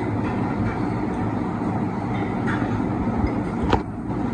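Steady machine-like drone with a low hum, with one sharp click near the end.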